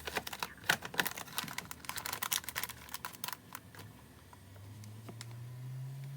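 Rapid, irregular clicking and clattering of small hard objects being handled, thinning out after about three and a half seconds. A low steady hum then rises in over the last two seconds.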